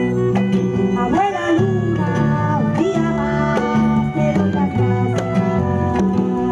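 Live ethnic-folk band music: plucked guitar over sustained low notes, with a wavering melody line above.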